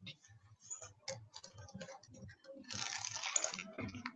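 Computer keyboard typing: irregular keystroke clicks, with a brief breathy hiss lasting about a second, roughly three seconds in.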